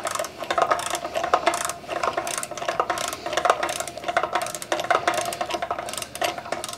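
Hand ratchet clicking in quick runs as it turns, running down the bolts on an up-pipe of a 7.3 Power Stroke diesel.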